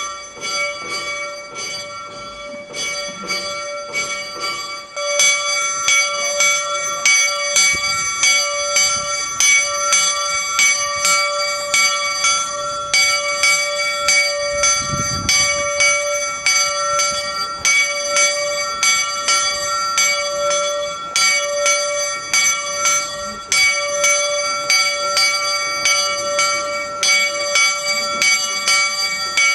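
A single bell tolling steadily, struck about once a second, each stroke ringing on into the next: a funeral knell. It grows louder about five seconds in.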